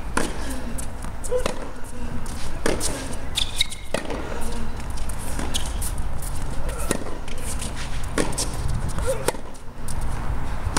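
Tennis rally on a hard court: the ball is struck by rackets and bounces, giving a sharp knock about every second and a half.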